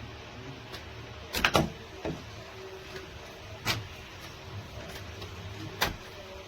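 Loose interior door lever and latch being worked by hand, giving a few sharp clicks and knocks: a quick cluster of three about one and a half seconds in, then single knocks spread out after. The lever slips without opening the latch, which the owner takes for broken cheap gears inside.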